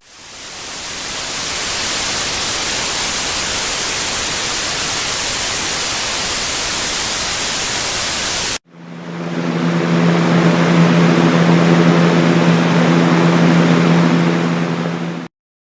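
White noise sleep machine playing a full, even hiss that fades in over about two seconds and cuts off suddenly about halfway through. A second, duller noise sound with a steady low hum under it then fades in and stops abruptly near the end.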